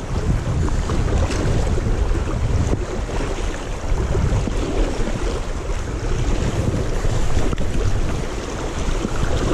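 Wind buffeting the microphone, over the steady rush of a shallow river flowing over gravel.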